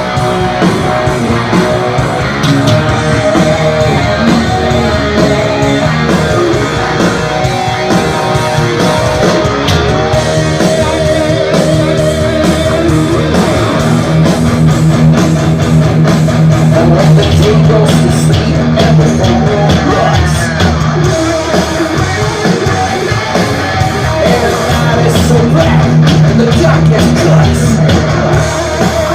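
Heavy metal band playing live: electric guitars with bass and drums, loud and continuous.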